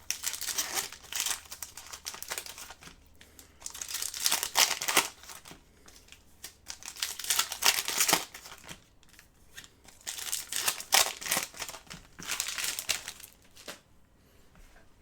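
Hockey card pack wrappers of Upper Deck SkyBox Metal Universe being torn open and crinkled, in about five separate bursts of rustling with short pauses between, falling quiet near the end.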